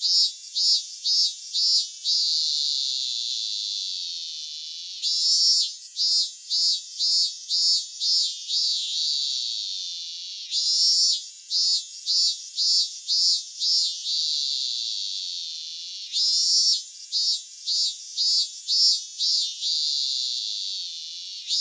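Cicada song: a run of about six short pulsed calls followed by a long drawn-out buzz that slowly falls in pitch, the phrase repeating about every five and a half seconds.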